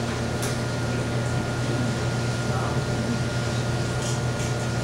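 A steady low hum, like a fan or ventilation, with a faint steady high tone over it and a few faint clicks.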